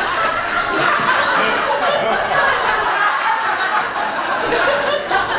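Audience laughing, many people at once, held steadily for several seconds.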